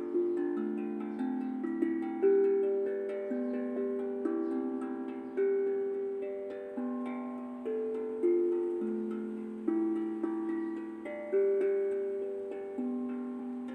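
Tuned melodic drum played gently in a slow, meditative pattern: clear pitched notes struck and left to ring and overlap, with a stronger accent about every one and a half seconds.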